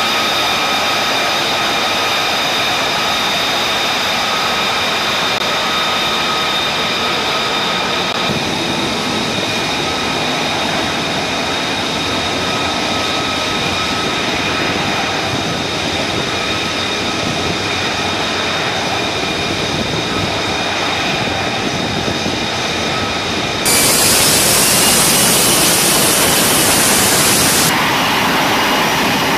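F-35B's Pratt & Whitney F135 turbofan running at high power: a steady rushing roar with a high whine. About 24 seconds in it abruptly turns louder and hissier for about four seconds, then drops back.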